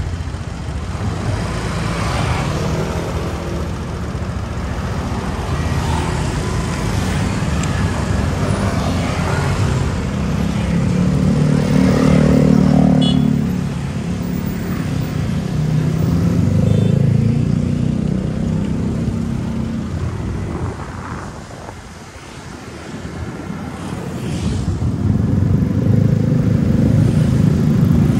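Motorbike riding through town traffic: engine running and road noise, with other motorbikes and cars passing close by. The engine note rises and falls with speed, easing off about two-thirds of the way through, then picking up again.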